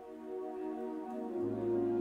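Ambient intro music of sustained, held chords; a low bass note comes in about one and a half seconds in and the music grows louder.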